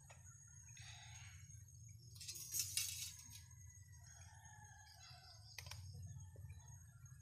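Ficus bonsai being handled while it is wired: a brief rustle of leaves and branches about halfway through, the loudest sound, then a single sharp click a couple of seconds later, over a faint steady low hum.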